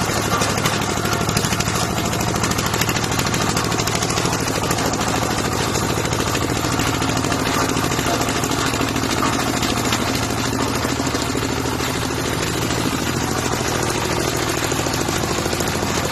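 Engine of a small portable farm tractor running steadily with a rapid, even chugging.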